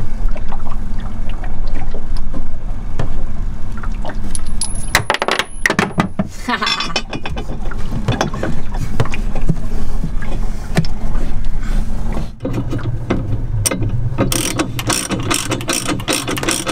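Metal chainplate scraping and clinking as it is worked loose in its fibreglass cavity in a boat hull, with scattered clicks and scrapes. Near the end comes a quick run of sharp strikes from a hand tool on the fibreglass. A steady low hum lies under all of it.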